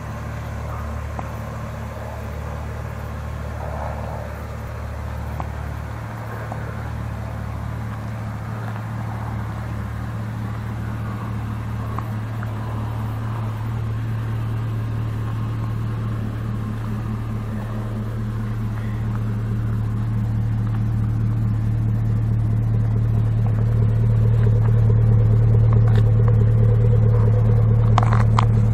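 Chevrolet Colorado's 5.3-litre V8 idling with a steady low rumble, growing louder toward the end.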